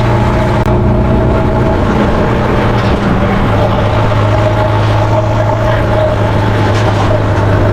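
Farm tractor's diesel engine running steadily, a constant low drone with a steady whine above it.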